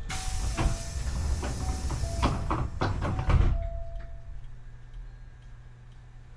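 Hankyu 8300 series train's sliding passenger doors closing: a loud hiss with clicks and rattles, ending in a heavy thud about three and a half seconds in.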